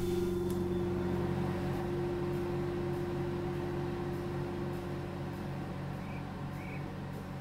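Microwave oven running: a steady electrical hum with a held tone, slowly fading.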